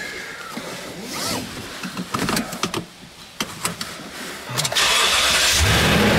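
Seat belt and small clicks and knocks in the cab, then near the end a truck engine is cranked and catches, settling into a steady idle.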